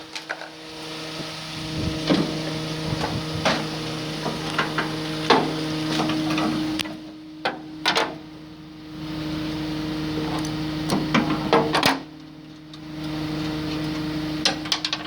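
A small electric motor hums steadily in three spells, stopping briefly twice. Scattered sharp knocks and clanks of tools and hardware come over it.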